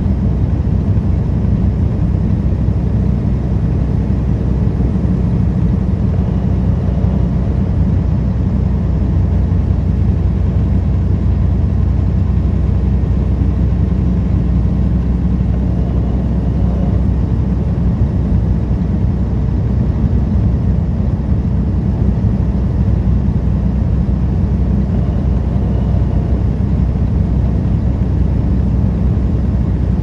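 Steady engine and road rumble inside a truck cab while driving down the highway.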